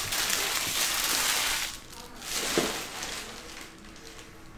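Crinkling and rustling of trading-card packaging and cards being handled on the table: a loud stretch of about a second and a half, then a shorter burst with a sharp knock about two and a half seconds in.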